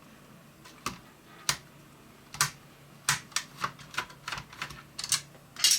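Screwdriver loosening the long screws of a Mac mini G4's small cooling fan: a series of sharp, irregular clicks, sparse at first and coming faster in the second half.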